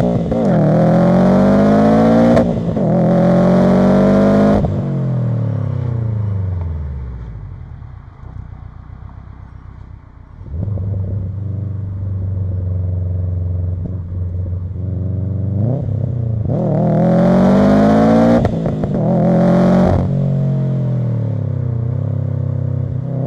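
Turbocharged flat-four engine of a 450 hp Subaru WRX STI accelerating twice. Each time it climbs in pitch through two gears, with a brief drop at the shift, then falls away as the throttle is lifted. Between the two pulls it runs at low revs with a steady low rumble.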